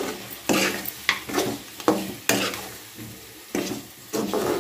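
A metal spoon stirring and scraping spiced chicken pieces around a kadai in hot oil, with the food sizzling. The scrapes come irregularly, several in a row with short gaps between them.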